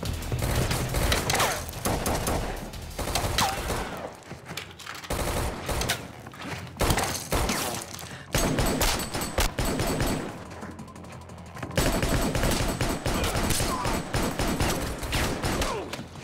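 Gunfight: rapid rifle fire in bursts of shots, with two short lulls about four and ten seconds in.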